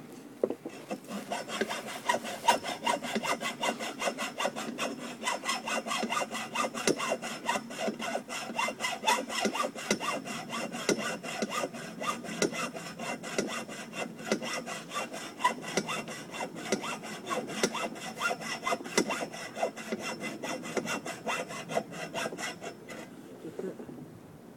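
Hacksaw cutting through a metal pole with quick, steady back-and-forth strokes, stopping near the end.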